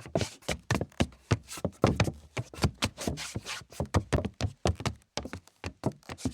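Footsteps, a quick irregular run of sharp taps several times a second, with a brief pause about five seconds in.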